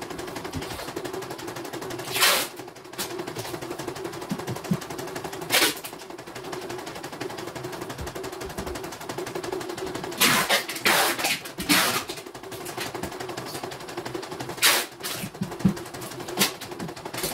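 CNY portable computerized embroidery machine stitching a design: a steady motor hum under a fast, even rattle of needle strokes. Several louder bursts of noise break in a few seconds apart.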